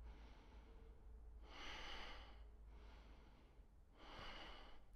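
A man breathing audibly while holding a yoga stretch: two slow breaths, one near the middle and one near the end, over a faint low hum.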